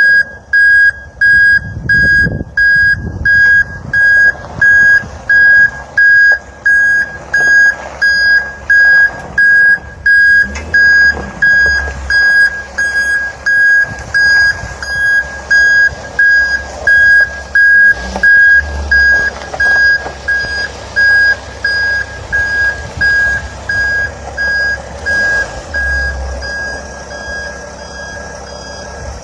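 Truck reversing alarm sounding a steady, evenly spaced train of single-pitched beeps, with a low engine rumble underneath; the beeps grow fainter over the last third.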